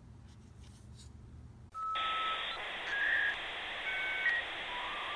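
Quiet room hum, then about two seconds in a short electronic outro starts suddenly: a hiss with brief beeping tones at changing pitches laid over it.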